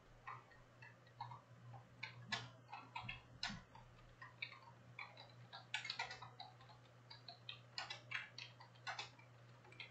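Light, irregular clicks and taps of small objects being handled on a desk, some sharper than others, over a steady low electrical hum.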